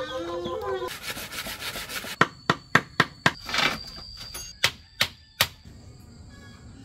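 Sharp knocks of a tool on bamboo: a run of four hard strikes about a third of a second apart, then a few single knocks. A chicken calls briefly at the start.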